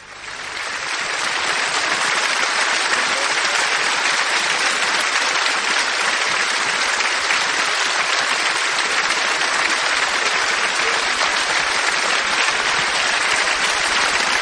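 Audience applauding at the end of a song, swelling over the first couple of seconds and then holding steady.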